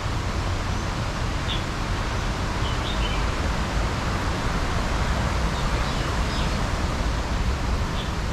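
Steady background noise with a constant low rumble and hiss, and a few faint, short high bird chirps scattered through it.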